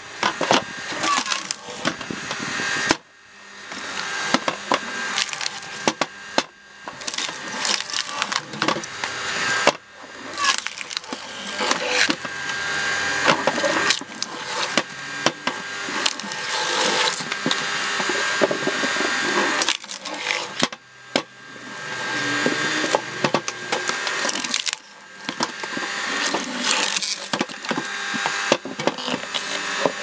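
Electric cone log splitter: the motor-driven threaded steel cone screws into log rounds and bursts them apart, with dense cracking, snapping and splintering of wood, over a steady motor whine. The splitting goes in bouts with a few brief lulls between pieces.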